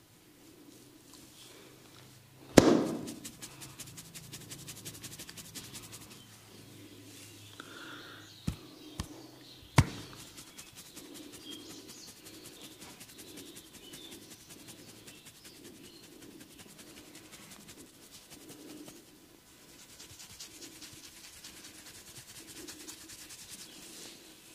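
Hands-on massage: one loud sharp crack about two and a half seconds in, then three smaller cracks in quick succession near the ten-second mark, over hands rubbing on skin and fast fine clicking.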